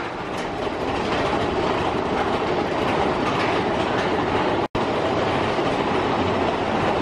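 Big Thunder Mountain Railroad mine-train roller coaster running along its track, heard from on board as a steady rattling rush of track and wind noise. The sound cuts out for an instant about two-thirds of the way through.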